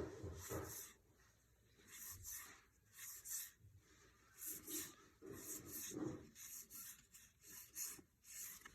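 Faint rubbing and rustling of baseball trading cards being handled and slid across one another, in short bursts about once or twice a second.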